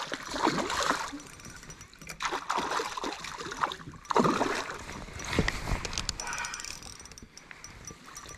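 A hooked trout thrashing and splashing at the water's surface in several bursts as it is drawn toward a landing net, settling down near the end.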